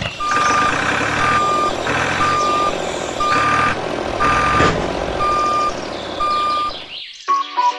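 Vehicle reversing alarm beeping at about one beep a second, seven steady single-tone beeps over background noise.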